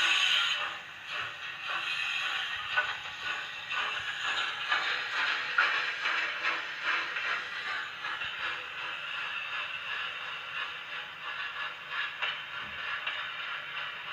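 Recorded steam-locomotive sound effect of a train working up a grade, played through the small speaker of a model-railway sound module. It is a steady, dense run of chuffing and mechanical clatter with little bass.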